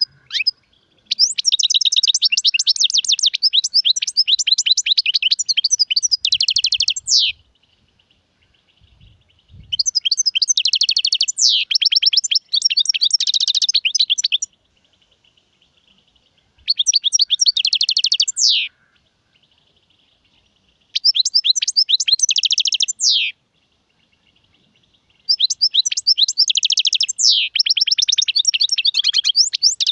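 European goldfinch singing: five long phrases of rapid, high twittering trills, several ending in quick downward-sliding notes, with pauses of about two seconds between them.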